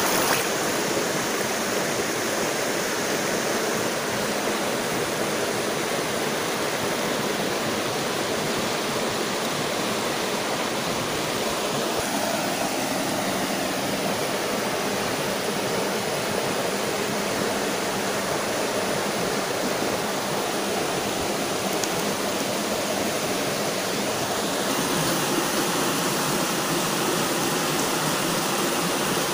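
Shallow, rocky stream flowing over stones and small rapids: a steady, even rush of running water.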